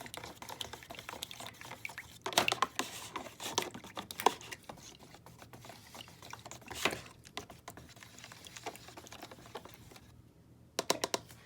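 A tablespoon stirring water and dish soap in a container: irregular small clinks and scrapes with some liquid sloshing, stopping briefly near the end.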